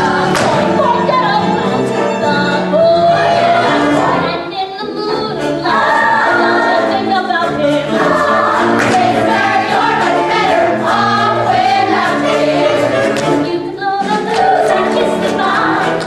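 A female chorus singing a show tune together over a band accompaniment in a stage musical number.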